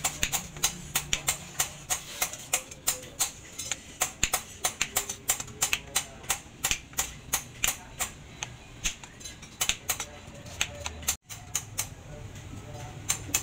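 Rapid sharp knocks, about three or four a second, each with a short metallic ring, as a wooden handle is driven onto the hot tang of a leaf-spring steel cleaver. The knocking stops abruptly about two seconds before the end.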